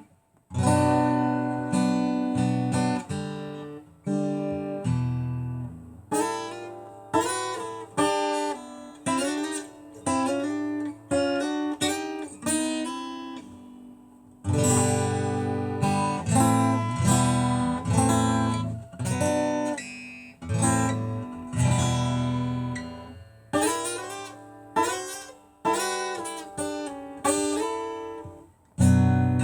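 Acoustic guitar strummed and picked, one chord after another, each left to ring and fade. There is a short break just after the start and another about halfway through.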